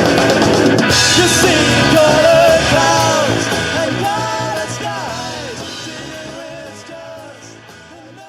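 Live rock band playing with a lead singer, in a gig recording. The music fades out steadily over the second half.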